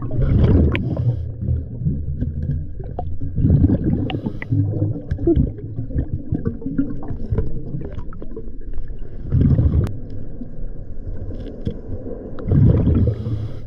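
Scuba diver breathing through a regulator underwater: exhaled bubbles rumble and gurgle past the camera in bursts every few seconds, with scattered small clicks and knocks between them.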